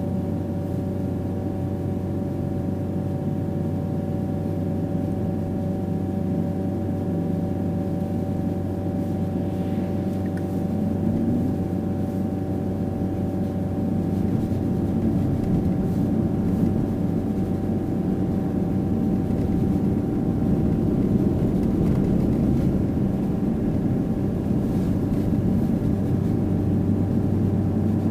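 Mitsubishi Pajero Mini driving at a steady speed, heard from inside the cabin: continuous engine and road noise with a steady hum, getting slightly louder about halfway through.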